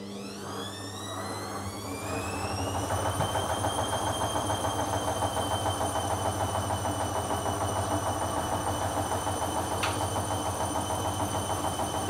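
Hoover Dynamic front-loading washing machine's drum motor spinning up. Its whine rises in pitch over the first few seconds, then holds at a steady speed with a regular pulsing as the drum turns.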